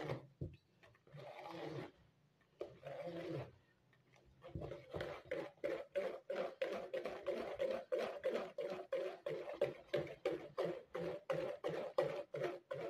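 Wire whisk beating thick gram-flour batter in a plastic bowl, wet slapping strokes while the lumps are worked out. A few slower strokes at first, then about four seconds in a fast, even rhythm of about four strokes a second.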